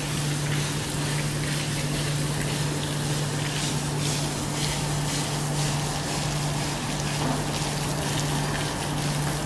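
A steady low mechanical hum with a constant rushing hiss over it, unchanging throughout.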